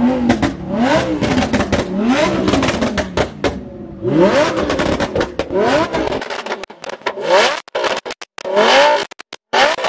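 A performance car's engine revved repeatedly, each rev climbing and falling in pitch about once a second, with sharp exhaust cracks between the revs. In the second half the sound drops out briefly several times.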